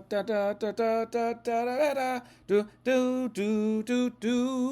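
A man singing a wordless tune to himself: a run of short notes, then a long held note near the end with a slight waver.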